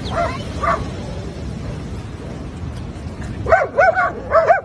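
A dog yipping and barking over the steady rush of surf: two faint calls near the start, then a quick run of four louder yelps about three and a half seconds in.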